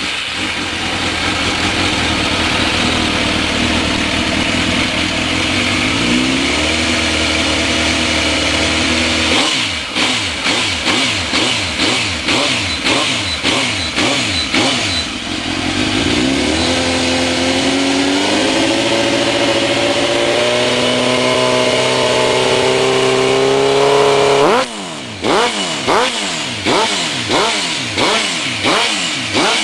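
Suzuki GSX-R 1000 inline-four revving through a Roncar Coyote tri-oval aftermarket exhaust. It runs steadily, then rises to a higher steady speed. After that come a string of quick throttle blips, a long slow climb in revs that snaps shut near the end, and more rapid blips.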